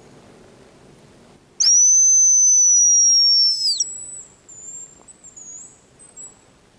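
Hazel grouse decoy whistle (call) blown once: one long, very high, thin whistle lasting about two seconds with its pitch sliding slightly down, followed by fainter high wavering twitter notes imitating the grouse's song.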